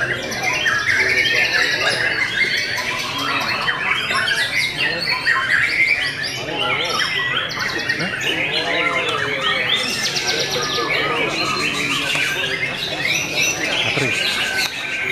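Several caged white-rumped shamas singing over one another: a dense, unbroken chorus of loud warbling phrases, whistles and rapid buzzy trills.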